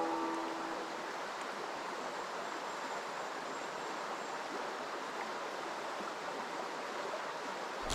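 Steady rushing of a small mountain stream's flowing water.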